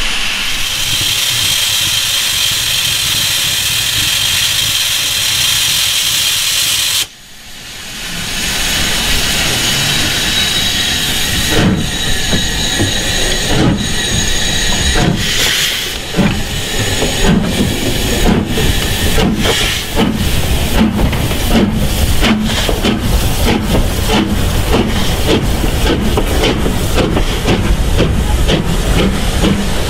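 LMS Stanier Black Five 4-6-0 steam locomotive 45305 hissing steadily with steam venting at its cylinders. After a short break about seven seconds in, it pulls away with exhaust chuffs that start slowly and quicken to about two a second as it gathers speed.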